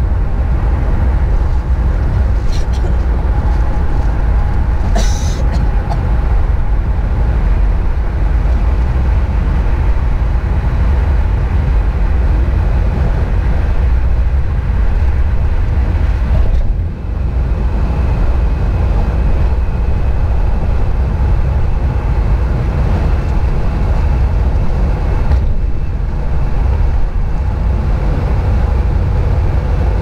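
Steady low rumble of road and engine noise heard inside a vehicle's cabin while driving at freeway speed, with a brief sharp click about five seconds in.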